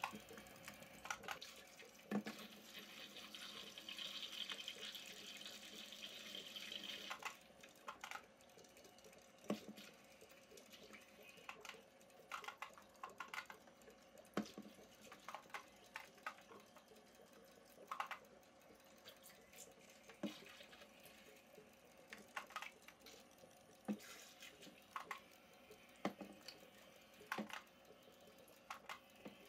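Faint aquarium water sounds: irregular small drips and plops, about one every second or two, over a low hiss that is a little stronger for the first seven seconds or so.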